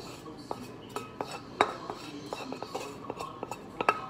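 Metal clinks and scrapes as softened cream cheese is scraped out of a stainless steel saucepan into a stainless steel mixing bowl: a run of irregular sharp ticks with brief ringing, the loudest about a second and a half in.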